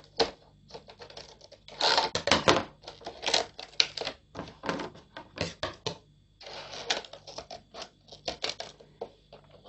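Scissors snipping through a thin plastic soft-drink bottle in a quick, irregular run of cuts, with a short pause about six seconds in.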